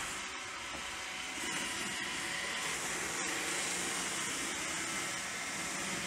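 Roomba 650 robot vacuum running as it drives up a cardboard ramp: the steady whir of its vacuum motor and brushes.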